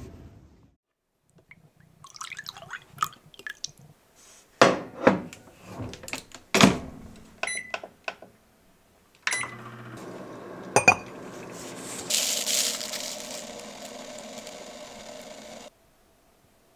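Clicks and knocks of things handled at a kitchen counter, then a small white countertop appliance runs for about six seconds with a steady hum, a hissing, liquid sound joining it in the second half before it cuts off suddenly.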